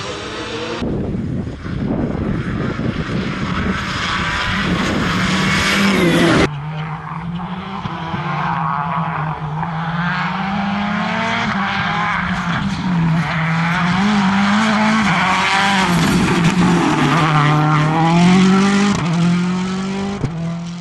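Rally cars at full speed on a loose gravel and dirt stage: engines revving hard with the pitch rising and falling through gear changes and lifts, and tyres scrabbling on the loose surface. The sound changes abruptly about six seconds in, as a different car takes over.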